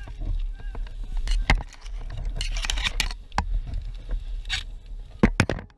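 An airsoft player's gear rattling, scraping and rustling while on the move, with scattered irregular sharp clicks and a low rumble underneath.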